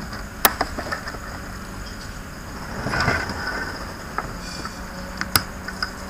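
Scattered sharp clicks and light knocks of hands handling a laptop's copper heatsink and fan assembly and a screwdriver over the opened case, with the two sharpest clicks about half a second in and near the end. A steady faint hum and hiss runs underneath.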